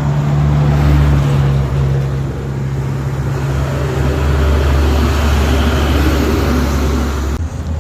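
Vehicle engine and road noise from inside a moving car: a steady low drone under a constant hiss. The sound changes abruptly near the end.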